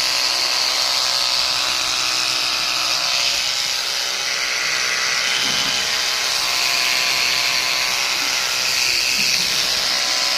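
Electric animal hair clipper running steadily with an even buzz.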